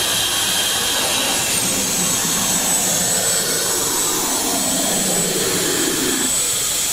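Candy prize vending machine's pick-up head working as it lifts from the lollipop pile: a steady, loud rushing noise like a blower, with a thin high whine over it.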